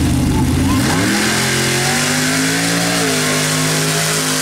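A modified Jeep-bodied mud-racing buggy's engine revving up hard as it launches from the start line. The pitch climbs steeply about a second in and then holds at high revs, with a noisy wash of tyres churning through mud.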